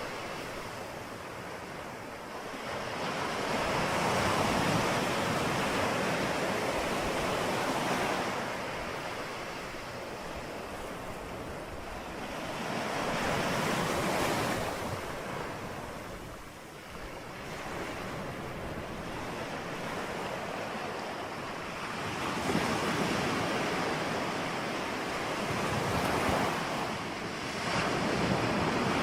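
Ocean surf: waves breaking and washing in, the rush swelling and ebbing every several seconds.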